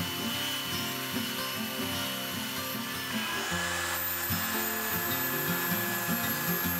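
Background music over the sound of a power tool working wood; the tool's steady whine shifts to a different pitch about three and a half seconds in.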